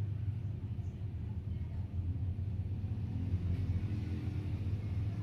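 A steady low hum, with no parrot calls.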